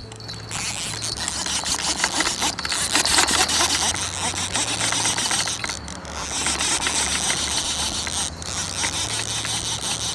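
Fishing reel being cranked, a fast mechanical clicking of the reel's gears as line is wound in, broken by a brief pause twice.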